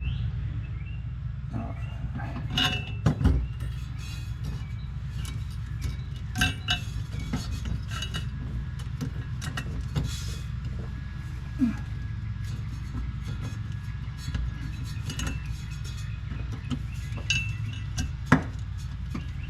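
Small metal hardware clinking and tapping as a shift cable's nut and lock washer are fitted onto its bracket by hand: scattered light clicks at irregular moments over a steady low hum.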